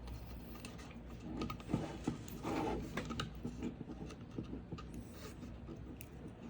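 Hands handling a fan cable and its small plastic connector on a crypto miner board: scattered light clicks and rustling, busiest about a second and a half to three and a half seconds in.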